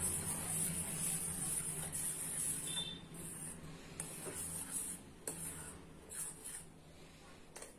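A spoon stirring milk simmering in a pot, scraping and lightly clicking against the pot, over a low steady hum.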